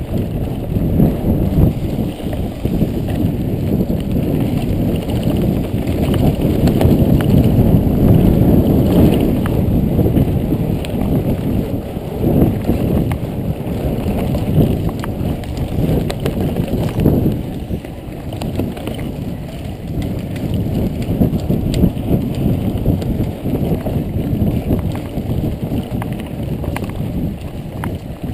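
Mountain bike riding fast over a dirt trail, heard from a GoPro on the bike or rider: steady rushing noise from wind and tyres, with frequent rattles and knocks as the bike goes over bumps.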